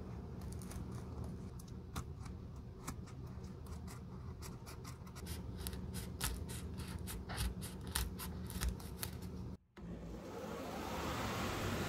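Steel blade scraping and prying crumbling cork off a Birkenstock sole, in many quick, sharp crackling scrapes. Near the end a belt sander's motor starts up with a rising whine and then runs steadily.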